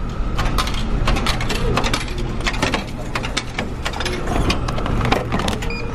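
Plastic food tray being taken out of a vending machine's flap-covered pickup slot: a quick run of clicks, knocks and plastic rattles, over the ship's steady low hum.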